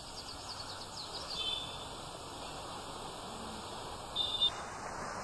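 Dead air on a live broadcast link: a faint steady background hiss from the remote feed, with a few faint high chirps near the start and again about four seconds in.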